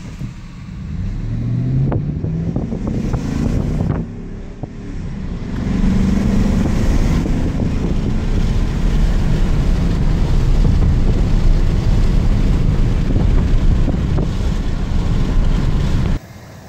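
GMC pickup truck's engine pulling hard under acceleration, heard from inside the cab. Its pitch climbs, drops at a gear change about four seconds in, and climbs again. It then settles into steady engine, tyre and wind noise at speed, which cuts off near the end.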